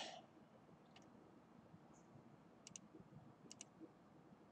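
Computer mouse button clicks, faint and sharp, each a quick press-and-release pair, twice in the middle, over quiet room hiss. A short soft hiss comes right at the start.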